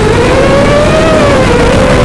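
FPV quadcopter's electric motors and propellers whining in flight, the pitch rising through the first second and dipping slightly after as the throttle changes.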